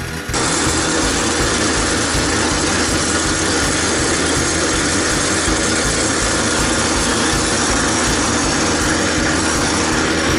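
Kioritz AZ850 Spider Mower's small petrol engine running steadily, heard close up from the handlebars. The sound comes in suddenly just after the start and holds level.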